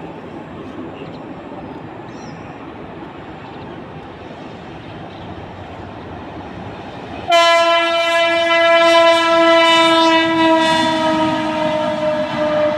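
Electric locomotive approaching with a steady rumble, then sounding its horn in one long, loud blast from about seven seconds in. The horn note sags slightly in pitch near the end as the locomotive passes.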